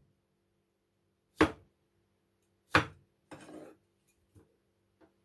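A broad-bladed kitchen knife chopping tomatoes into quarters on a cutting board: two sharp chops about a second and a half apart. They are followed by a brief shuffling noise and a couple of light taps.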